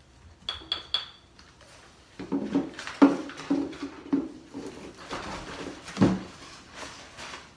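Products being handled and lifted out of a cardboard shipping box: three short high squeaks in the first second, then a run of irregular knocks and rustles from about two seconds in, with a sharper knock about three seconds in and another about six seconds in.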